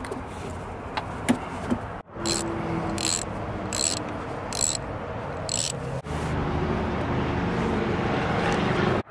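Hand socket ratchet tightening the NV4500 shifter's mounting bolts: about five strokes, each a short burst of clicking. A steadier low mechanical rumble takes over near the end.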